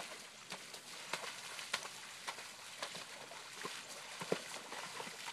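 Horse pawing with a front hoof in a shallow muddy puddle, stirring it up: irregular splashes and slaps of water, the loudest about four seconds in.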